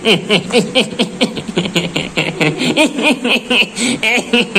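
A man laughing in a fast run of short bursts, about four or five a second.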